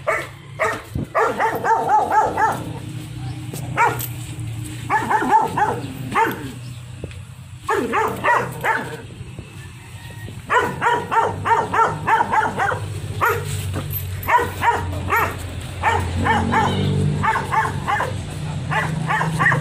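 Belgian Malinois barking in quick volleys, several barks a second, with short pauses between bursts.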